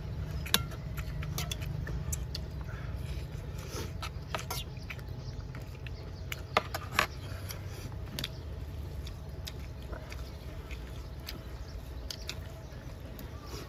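People chewing and eating with their hands: scattered short wet clicks and smacks from mouths and fingers, sharpest about half a second in and twice close together near the middle, over a steady low rumble.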